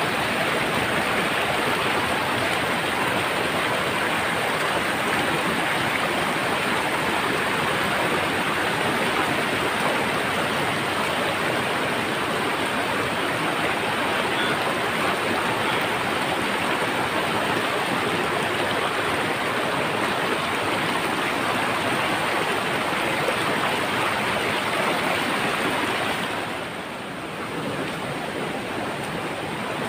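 Shallow mountain stream rushing steadily over boulders and small cascades, turning somewhat quieter near the end.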